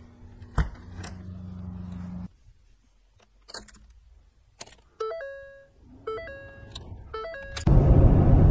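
Car starting off: a sharp click and a brief hum, a few knocks, then electronic chime tones in three short repeating stepped phrases, before a loud steady engine and road rumble sets in near the end.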